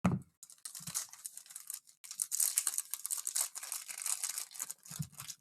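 A trading-card pack's foil wrapper being torn open and crumpled by hand: a dense, crackling rustle, heaviest in the middle.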